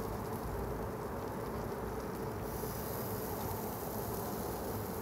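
Yoder YS640 pellet grill running: a steady hum with an even hiss, a little more hiss from about halfway through.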